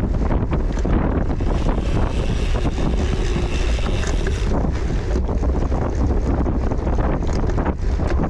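Wind buffeting the microphone, a loud, steady low rumble. A hiss rises over it about two seconds in and fades about four and a half seconds in.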